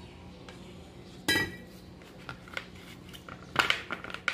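Kitchen handling clatter: a sharp clink with a brief ring about a second in, then a few light clicks and a quick run of taps near the end as wet baby corn cobs are set down on a plastic tray.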